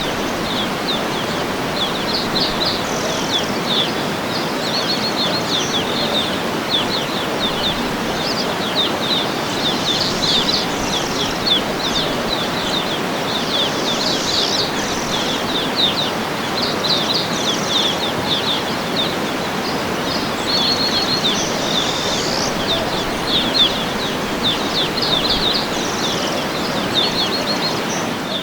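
Steady rushing of a waterfall, with small birds chirping and trilling repeatedly over it in quick high notes.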